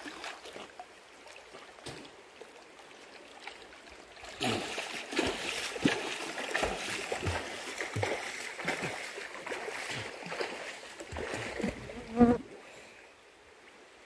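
Water splashing and sloshing as a swimmer moves through a pool, in irregular splashes that grow louder about four seconds in. A short, louder sound with a pitch to it comes near the end, after which the splashing stops.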